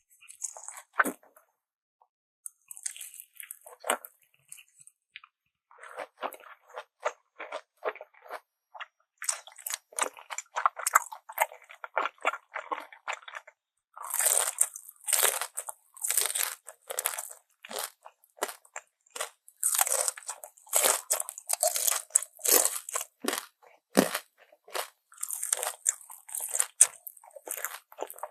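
Close-miked eating: crisp crunching bites and chewing of crunchy food, coming in clusters with short pauses. It gets denser and louder about halfway through.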